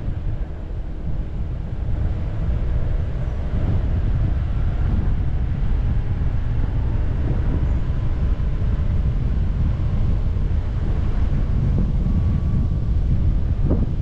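Steady low rumble of a car driving along a street, road and wind noise on the microphone, with a short knock near the end.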